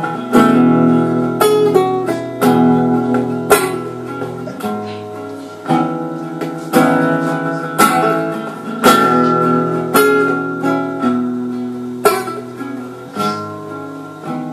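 Acoustic guitar strummed live, an instrumental passage of chords struck about once a second, each left to ring.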